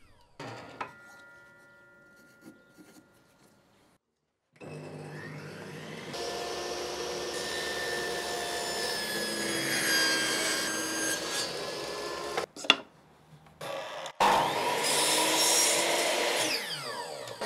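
A table saw running and cutting small wooden blocks, then a Metabo sliding miter saw running through a cut in a small block, its blade winding down near the end. A sharp click falls between the two cuts.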